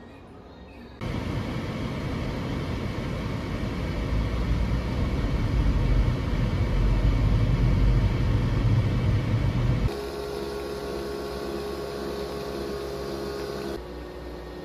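Car driving on city streets, heard from inside the cabin: a steady low rumble of road and engine noise that begins about a second in and swells toward the middle. It cuts off abruptly, and a Breville coffee machine brewing takes over with a steady humming whir.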